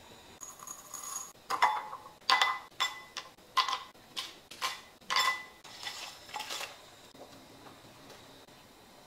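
Whole dried spices such as cassia bark and bay leaves dropped by hand into a ceramic bowl: a run of about ten light clinks and clacks, each with a brief ring.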